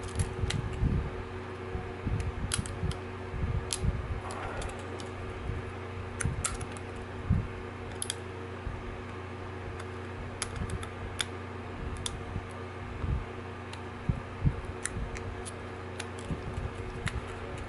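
Scattered small clicks and taps of fingers handling an opened compact camera and pressing ribbon cables into their motherboard connectors, over a steady low hum.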